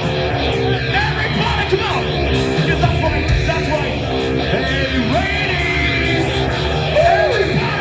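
Live metalcore band playing loud and distorted, with heavy bass and drums under chugging guitar chords and yelled vocals, recorded from the crowd.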